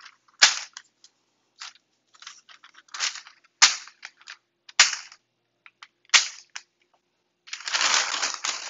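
Metal burger press knocking down onto ground-beef patties through parchment paper on a wooden cutting board: about five sharp knocks, unevenly spaced, with light paper rustling between them. Near the end, parchment paper crinkling as the sheet is peeled off the pressed patties.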